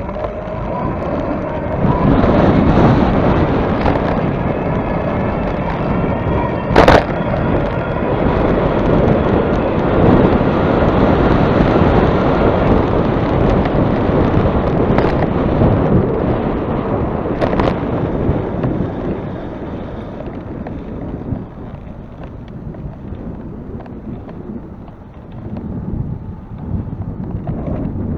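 Wind buffeting the microphone with rolling rumble during a ride into a headwind, easing in the last third, with two sharp knocks, one about 7 seconds in and one about 17 seconds in.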